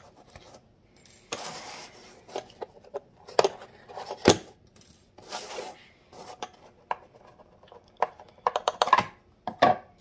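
Small nails or pins being worked out of a riker display case and its glass lid handled: scattered light clicks, taps and scrapes, with a quick run of sharp clicks near the end.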